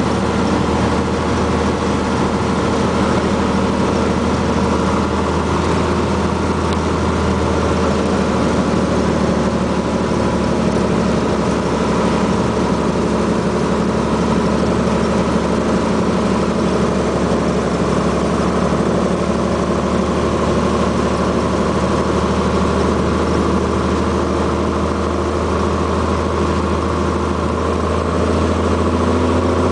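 Cessna 182T's six-cylinder Lycoming engine and propeller running steadily on the landing approach, heard inside the cockpit.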